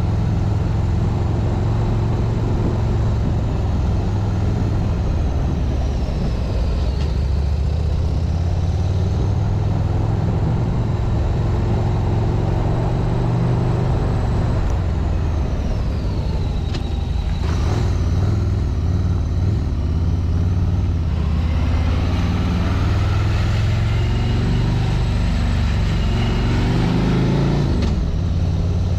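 Harley-Davidson Street Glide's V-twin engine running steadily under way on a climb. Near the end the engine note rises and then falls away.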